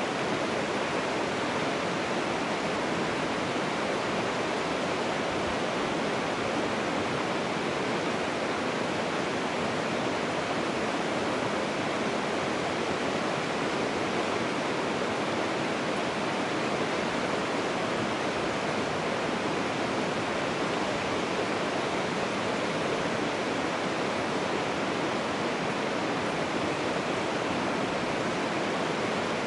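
Steady rushing of running water, an even noise that does not change.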